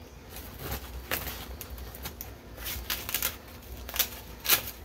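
A nylon pouch being handled as gear is pushed into it and its flap pulled over: irregular rustling with scattered sharp clicks and taps, the loudest near the end.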